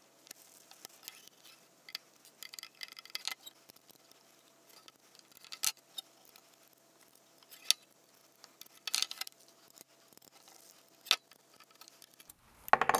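Scattered clicks and small clinks of aluminium parts being handled, as aluminium spacers and a rubber timing belt are fitted into a perforated aluminium channel, with a short rattle of clicks a few seconds in.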